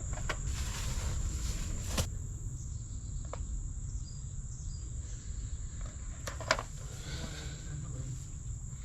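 Steady, high-pitched insect chirring, crickets or similar, over a low rumble, with a couple of short clicks about 2 and 6.5 seconds in.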